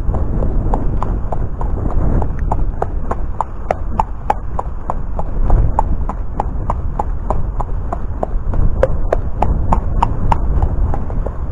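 A Thoroughbred horse's hooves striking a compacted dirt-and-gravel track in a steady clip-clop, about three sharp hoofbeats a second, over a steady low rumble.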